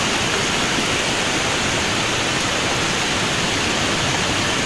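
Muddy floodwater rushing across a hill road in heavy monsoon rain: a steady, unbroken rush of water noise.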